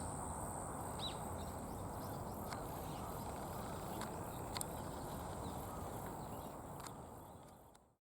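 Wood fire crackling: a few sharp pops over a steady low rush, fading out near the end.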